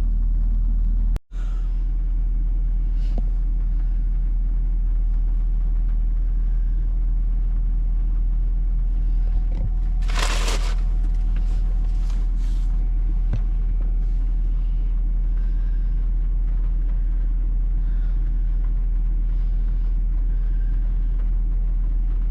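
Steady low rumble of a vehicle idling, heard from inside the cabin. A brief rustling noise comes about ten seconds in.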